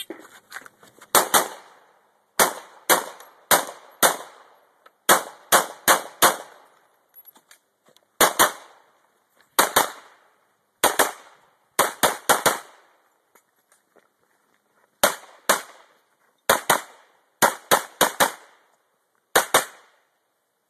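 Handgun shots fired rapidly, mostly in close pairs (double taps), about thirty in all. They come in quick strings with short breaks of a second or more between groups, the rhythm of a practical-shooting stage run with the shooter moving between positions.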